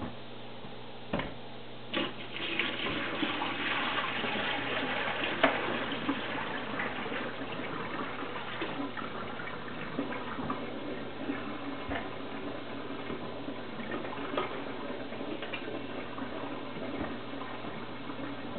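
Dirty water poured out of a Via Aqua VA750 aquarium canister filter's body into a kitchen sink, splashing into the basin. A couple of knocks from the plastic canister come first, about one and two seconds in; the pour starts soon after, heaviest for the first few seconds, then runs on more softly.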